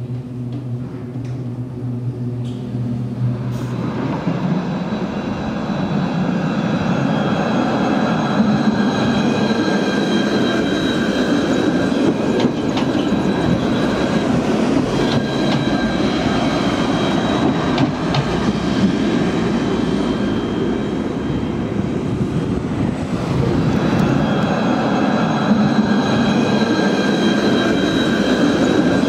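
Alstom Citadis 302 tram running on rails: a steady rumble of wheels and running gear that swells over the first several seconds, with several high, steady whining tones above it. A low steady hum comes first, before the rumble builds.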